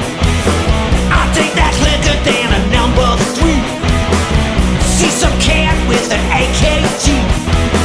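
Loud rock music with a steady, driving beat.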